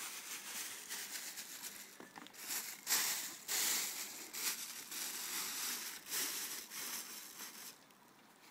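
Plastic wrapping crinkling and rustling as it is handled, in uneven bursts that are loudest about three to four seconds in, then stopping near the end.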